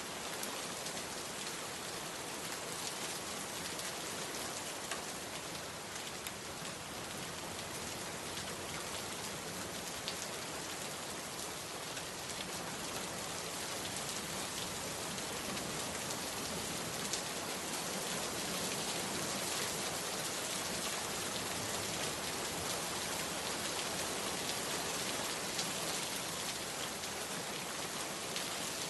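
Steady rainfall, a continuous hiss with scattered drops pattering on surfaces, growing slightly heavier toward the end.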